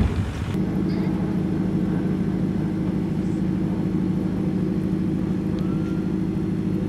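Large diesel engine on a ferry running steadily at idle: a deep, even hum that sets in about half a second in.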